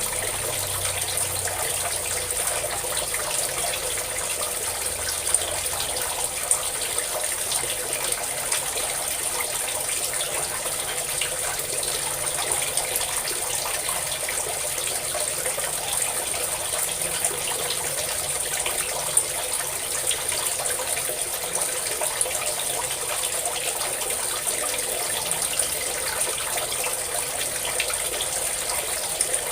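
A stream of water pouring and splashing steadily, with a few brief louder splashes along the way.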